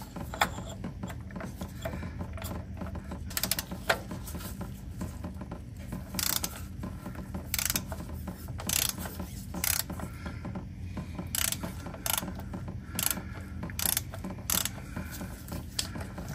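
Ratchet clicking in short bursts, about once a second, as it turns a cap-style oil filter wrench to loosen a spin-on oil filter.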